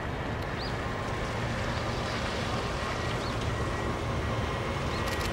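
Steady low rumble and hiss of a train approaching on the line, slowly growing louder, with wind on the microphone and a few faint high chirps.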